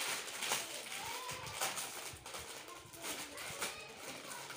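Plastic snack packets crinkling and crackling as two children handle them and pull them open.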